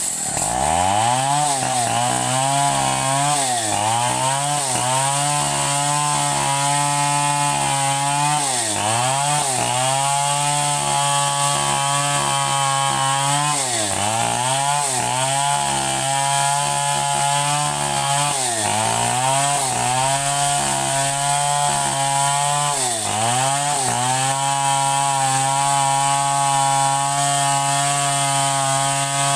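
Two-stroke chainsaw engine running at high revs. Its pitch dips sharply and recovers about ten times, as the engine bogs and picks up again under the load of cutting wood.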